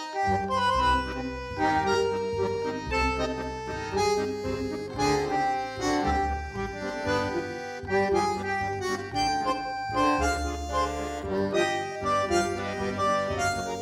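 Instrumental tango background music, an accordion-type squeezebox carrying the melody over a regular bass pulse.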